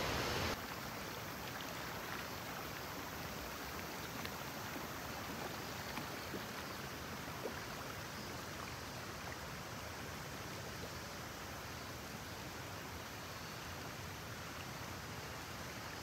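Steady rushing of river water over rocks and falls, with a few faint clicks; the sound drops abruptly to a quieter level about half a second in.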